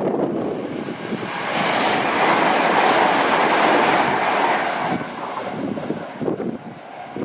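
A high-speed passenger train passing through at speed without stopping: a rush of wheel, rail and air noise that builds about a second and a half in, is loudest in the middle and fades away near the end. Wind buffets the microphone at the start.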